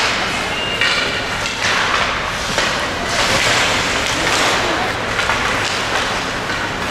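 Ice hockey play in a rink: a steady hiss of skate blades scraping the ice, with scattered knocks of sticks and puck.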